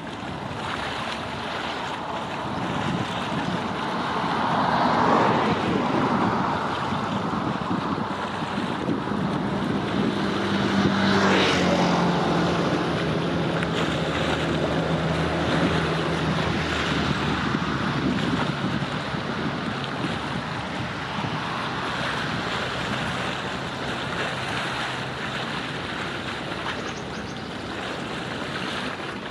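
Wind buffeting the microphone over water and waves, with a low steady hum from around ten to sixteen seconds in.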